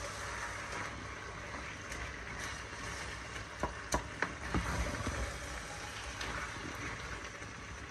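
A spoon stirring tripe and chopped spinach in a pot on a hob over a steady sizzle, with a few light knocks of the spoon against the pot around the middle.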